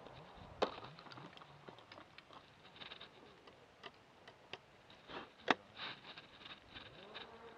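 Quiet handling clicks of a shotgun being reloaded between clay targets: the action is opened, fresh shells are put in and it is closed, with a sharper click about two-thirds of the way through.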